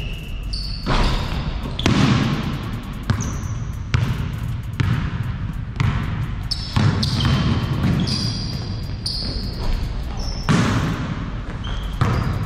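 Basketball bouncing on an indoor court, about a dozen sharp bounces at roughly one a second with some irregularity, each ringing briefly in the hall. Short high sneaker squeaks come between the bounces.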